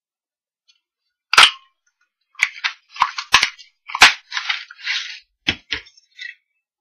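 Handheld Stampin' Up! Balloon Bouquet craft punch snapping through coral cardstock: a loud sharp click about a second and a half in, a cluster of clicks with paper rustling, another loud snap about four seconds in, then rustling and two lighter clicks near the end.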